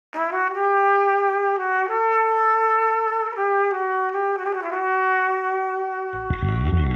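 Intro music: a trumpet playing a short melody of several long held notes, followed about six seconds in by a low sweeping whoosh.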